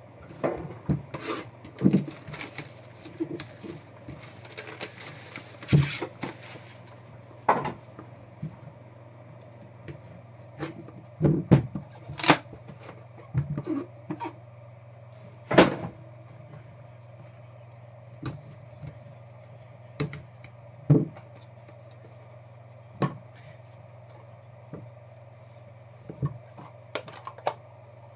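Trading card box and pack being opened and cards handled on a table: a stretch of crinkly rustling about two to seven seconds in, then scattered sharp clicks and taps as cards and holders are handled and set down.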